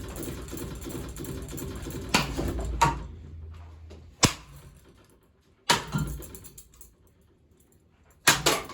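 Hampton Bay Littleton ceiling fan running with a rhythmic clatter from its damaged blades and rusted, worn-bearing motor, which dies away after about three seconds. Sharp bangs of impacts come about two seconds in, twice more by six seconds, and a quick double bang near the end.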